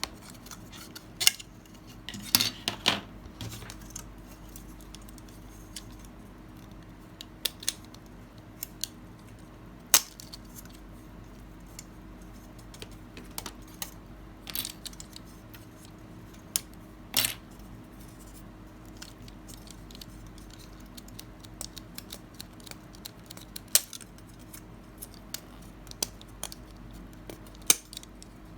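Scattered sharp clicks and snips of small plastic model-kit parts being cut and handled. There is a small cluster of clicks near the start and single louder snaps every few seconds.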